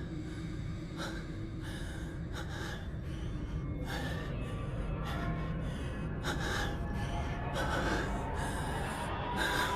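A man breathing heavily: a string of gasping breaths in and out, about one a second, over a steady low background rumble.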